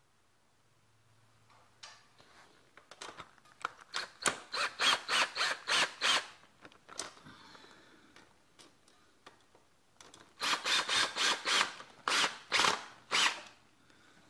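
Ryobi cordless driver run in short trigger bursts on a bolt at a mini bike's rear wheel axle: two runs of rapid, rattling strokes about four to five a second, each run lasting about three seconds.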